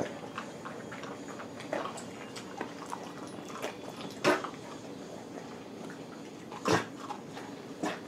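A dog eating a Milk-Bone dog biscuit: a few short, sharp sounds over a quiet background, the loudest near the middle and about a second before the end. The dog is choking on the biscuit.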